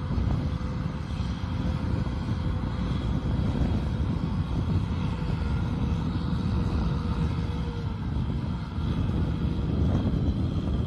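Kubota M6040SU tractor's diesel engine running steadily under load while pulling a disc plough through a muddy paddy field: a continuous low rumble.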